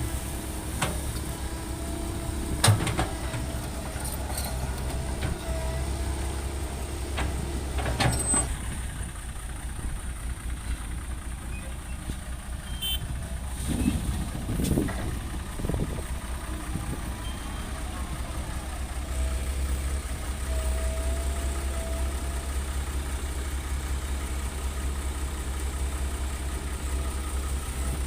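Heavy diesel earthmoving machinery running with a steady low rumble, with a few sharp clanks.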